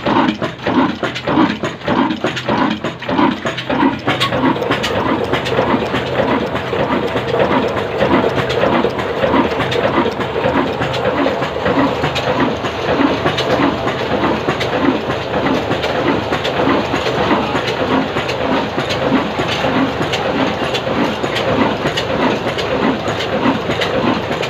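Nafees slow-speed stationary diesel engine running with a steady, even beat and a constant clatter of clicks from its working parts.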